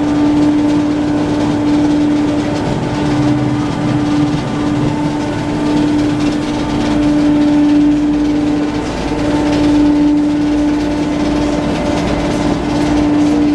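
Automatic car wash machinery running: a loud, steady mechanical drone with a constant hum.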